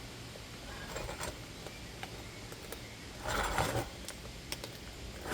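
A tool being worked up under an old roof shingle to loosen it, with a short rasping scrape about three seconds in and a few faint clicks.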